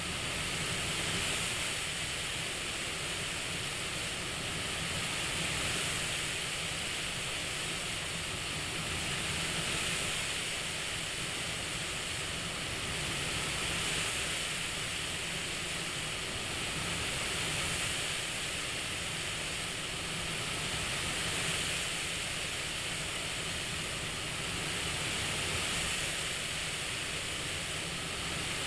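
Steady CPAP-style airflow hiss that swells gently and falls back about every four seconds, in the rhythm of slow breathing.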